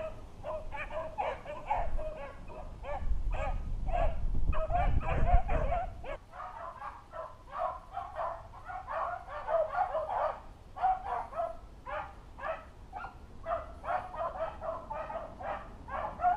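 A pack of beagles baying as they run a rabbit on its scent trail, many overlapping cries in a steady stream. Wind buffets the microphone with a low rumble for about the first six seconds.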